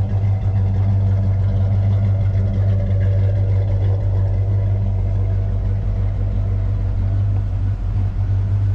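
A 347 cubic-inch V8 in a 1964 Ford Falcon Futura idling steadily and evenly; it runs smooth.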